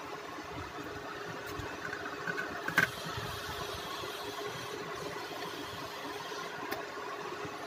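Steady machine-like hum with a faint steady tone, broken by a few small clicks and one sharp click about three seconds in, as a crocodile-clip test lead is fastened onto a laptop mainboard.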